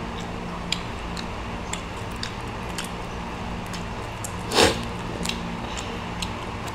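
Eating at a table: scattered small clicks and cracks as grilled prawns are peeled by hand, over a steady hum. About four and a half seconds in there is one louder, brief noise.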